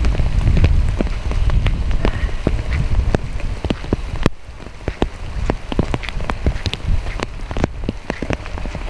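Rain, with irregular sharp taps of drops falling close by over a steady patter and a low rumble underneath.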